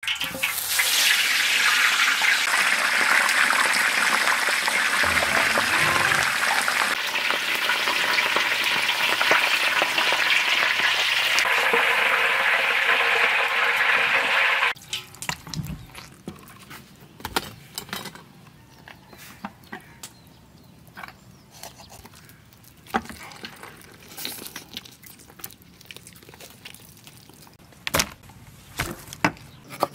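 Hot oil sizzling steadily in a large wok as food deep-fries, cutting off suddenly about halfway. After that it is much quieter, with scattered light clicks and knocks of food being handled in a wicker basket.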